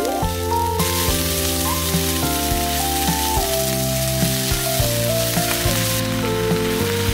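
Sliced onion and komatsuna sizzling as they stir-fry in a frying pan, a steady hiss that strengthens about a second in and eases near the end, over background music with a simple melody.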